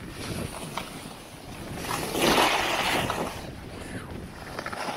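Alpine skis sliding and scraping over snow on a downhill run, with wind rushing on the handheld camera's microphone. A louder swish of snow about two seconds in lasts roughly a second.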